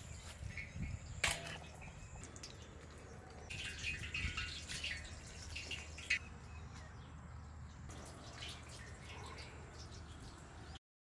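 Hands scooping wet, marinated mutton into clay pots: scattered soft squelches and clicks, with a sharper knock about a second in and a busier patch of wet crackling a few seconds later. The sound cuts out for a moment near the end.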